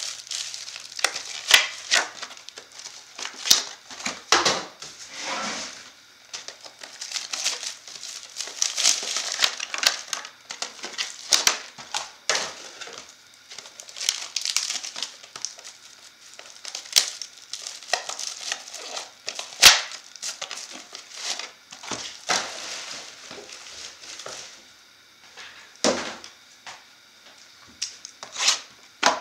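Plastic wrapping crinkling and rustling as sealed trading-card hobby boxes are handled, with irregular sharp clicks and taps throughout. It eases off for a few seconds near the end.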